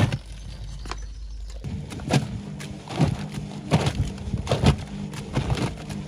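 A Whirlpool front-loading washing machine drum tumbles wet, soapy laundry with the door open: repeated sloshing splashes and thuds as the load drops, over the steady hum of the drum motor. The tumbling pauses briefly just after the start and picks up again about two seconds in.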